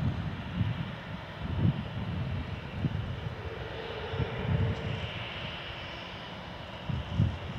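Boeing 737-400's jet engines running at low taxi power, a steady rush with a faint whine that rises slightly about five seconds in. Wind gusts buffet the microphone throughout.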